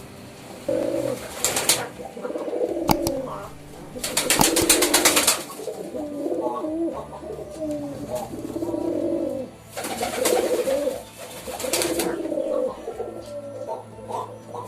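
Several pigeons cooing in overlapping low, throaty phrases. Loud bursts of rustling noise break in three times: about a second and a half in, for about a second and a half around the middle of the first half, and for about two seconds near two-thirds of the way through.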